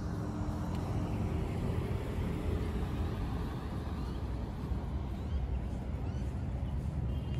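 Steady outdoor city background: a low, even rumble of road traffic.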